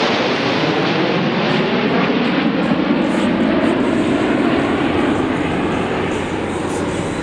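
Jet noise from a formation of CT-114 Tutor turbojet trainers passing overhead. It is a steady, loud rushing sound that eases slightly near the end as the aircraft draw away.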